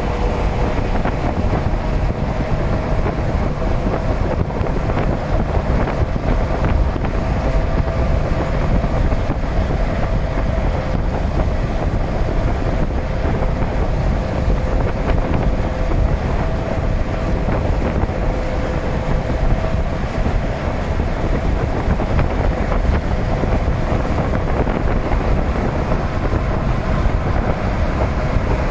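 Freight train rolling past: a steady, loud rumble that holds unbroken for the whole stretch, with a steady hum of tones above it.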